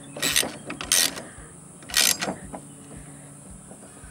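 Steel parts of a log jack being handled as its loose hook and bolt are fitted: three short metal scrapes and clatters about a second apart, then quieter.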